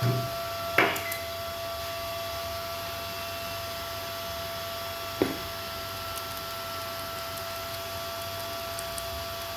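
A steady electrical hum with a thin high tone, broken by a dull thump at the start and two sharp knocks, one about a second in and one about five seconds in.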